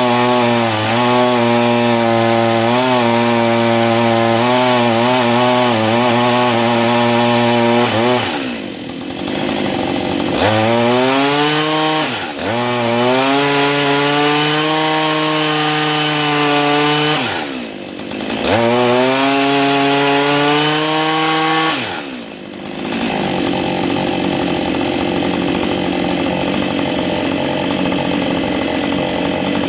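Husqvarna 562 XP two-stroke chainsaw engine running hard under load on a hydraulic brake test stand. Its speed sags and climbs back several times, then it settles into a steady, rougher-sounding run. The test is set up to mimic a back cut, the position in which the saw has been quitting.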